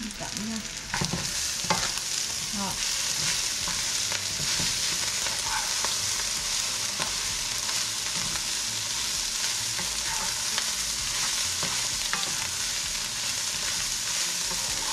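Food stir-frying in a large, very hot pan: a steady sizzling hiss, with occasional scrapes and clicks of the stirring utensil against the pan. The sizzle swells about a second in.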